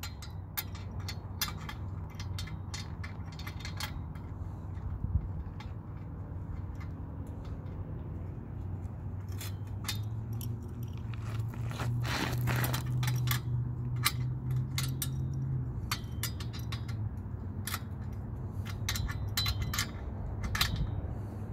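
Light metallic clicks, taps and scrapes, irregular and scattered, as screws on the lower part of a steel satellite-dish tripod are tightened. A low steady hum runs underneath and swells for a few seconds in the middle.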